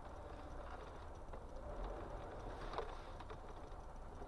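Faint, steady low hum of a car driving slowly, heard from the dashcam inside the car. A few short clicks come a little over a second in and again near the end, the loudest nearly three seconds in.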